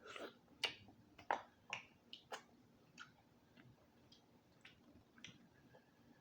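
Close-miked wet chewing with lip smacks, in a row about every half second, softer after the first two seconds.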